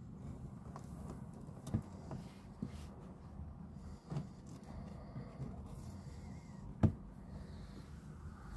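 Kittens eating dry cat food: scattered sharp clicks and knocks, the loudest about seven seconds in, over a steady low hum.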